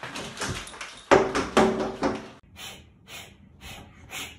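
Window blind slats clattering and rattling as a dog caught in them thrashes about, with the two loudest crashes about a second in and half a second later. The clatter breaks off about two and a half seconds in, leaving only faint, quieter sounds.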